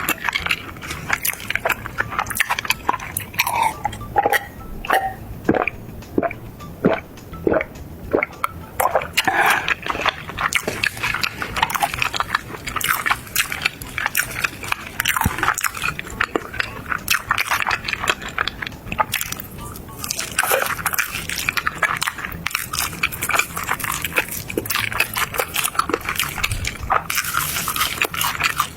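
Close-miked eating: a person biting and chewing crunchy fried food, with rapid irregular crackles and crunches and wet mouth sounds.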